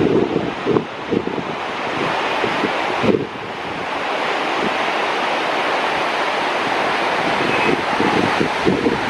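Waterfall in spate with snowmelt, a steady rush of falling water. Wind buffets the microphone in gusts, mostly in the first second and again near the end.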